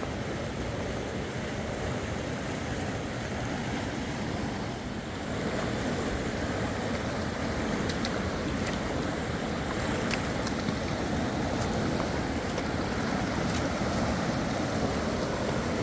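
Steady rush of fast-flowing river water, a little louder from about five seconds in, with a few faint clicks in the second half.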